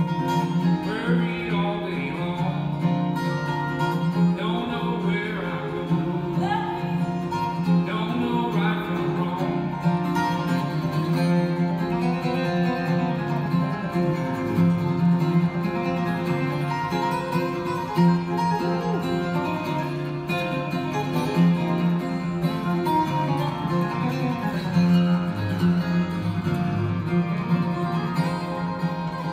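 Two acoustic guitars playing a country song live, with singing.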